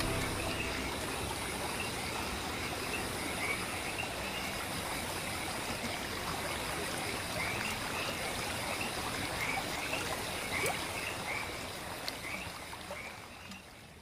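Water trickling steadily as it is poured from a camping kettle into a steel mug, tailing off near the end. A faint chirp repeats about twice a second behind it.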